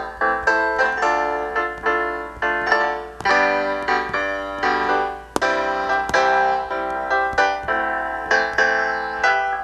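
GarageBand's Grand Piano smart instrument on an iPad 2, played by tapping the chord strips: a steady run of struck piano chords, two or three a second.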